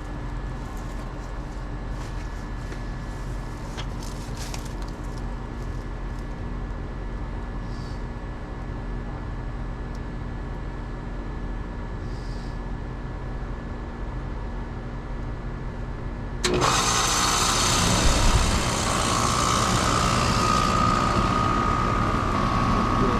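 Rheem Classic heat pump outdoor unit running with a steady hum. About sixteen seconds in, a sudden loud rushing hiss breaks in, and a steady whistling tone joins it a few seconds later. This is typical of the reversing valve shifting for defrost.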